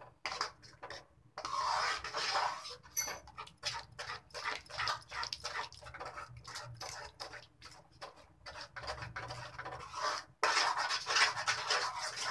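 A metal spoon stirs a thick water chestnut flour batter in a steel pan, scraping and clicking against the pan in quick, irregular strokes. The scraping grows louder about two seconds in and again near the end.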